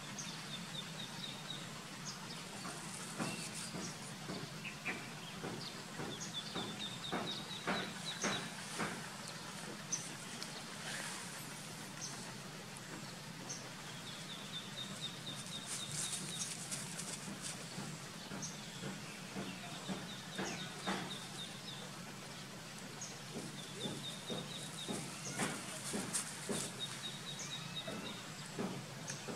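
Outdoor ambience of small birds chirping: short, high twittering trills of about a second each, recurring every few seconds. Scattered light clicks and rustles and a low steady hum run underneath.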